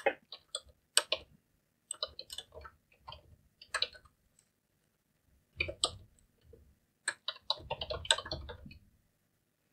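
Computer keyboard typing: irregular keystrokes in short runs, with a pause of about a second near the middle and a quicker run of keys near the end.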